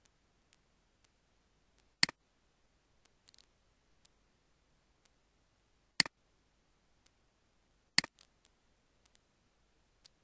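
Computer mouse button clicked three times, a few seconds apart, each a sharp click followed at once by a softer release click, with fainter ticks in between.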